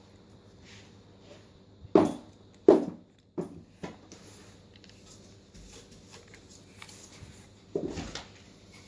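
Handling noise from a full-metal CO2 revolver airgun: a handful of sharp knocks and clicks, two loud ones close together about two seconds in, two lighter ones just after, and another near the end.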